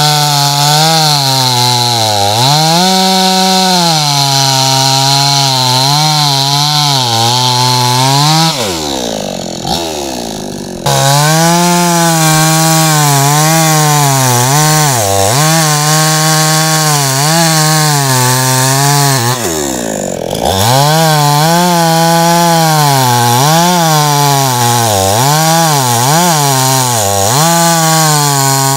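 Hyundai 45cc two-stroke chainsaw at full throttle cutting through a log round, its engine pitch dipping and recovering as the chain loads up in the wood. Twice, about a third of the way in and again about two thirds in, the engine winds down and then comes back up to full speed.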